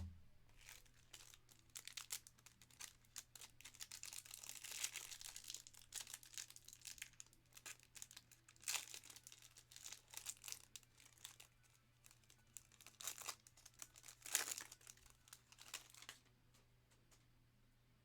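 Faint crinkling and tearing of a trading card pack's plastic wrapper being opened by hand: a run of sharp crackles with louder clusters in the middle and again near the end, dying away a couple of seconds before the end.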